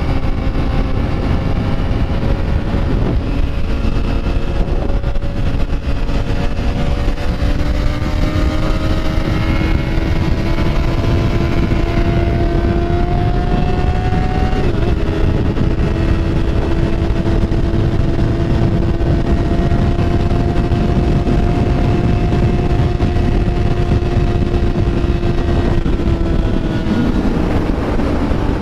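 Motorcycle engine running steadily under way, its pitch slowly climbing for most of the stretch and falling off near the end, with heavy wind rush on the microphone.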